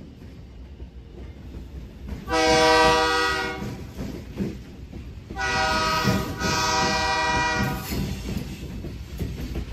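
Indiana & Ohio Railway freight train passing close by, its diesel locomotives rumbling and wheels clattering on the rails. The train's multi-note air horn sounds a short blast about two seconds in and a longer one from about five and a half seconds in.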